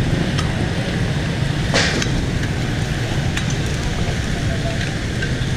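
Street-side cooking ambience: a steady low rumble of traffic and burner, with a few light metal clicks and one short hiss about two seconds in.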